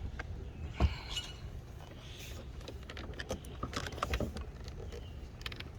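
Plastic interior door trim panel being handled and fitted onto the car door: scattered light clicks and knocks, with one sharper knock about a second in.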